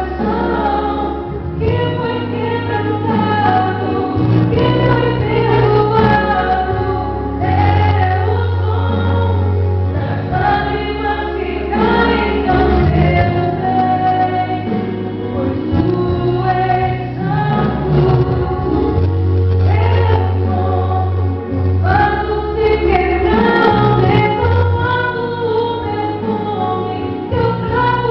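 Gospel song sung by a female voice over a backing track with sustained bass notes and choir-like backing vocals.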